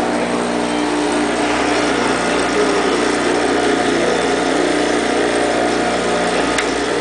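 Edgemaster II bevel edger running: a steady machine hum from its motor with several held tones, even throughout.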